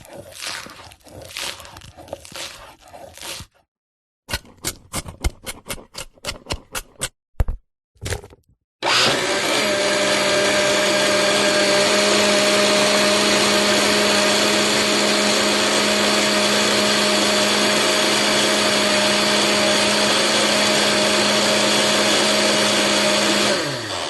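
Food being cut, with crunching, then a quick run of about a dozen sharp chops. About nine seconds in, a kitchen blender starts and runs steadily with a constant hum, then winds down with a falling pitch near the end.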